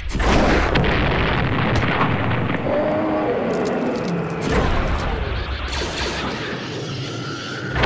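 Library explosion and destruction sound effects: a sudden blast at the start, then continuous rumbling and crashing, with another blast about four and a half seconds in.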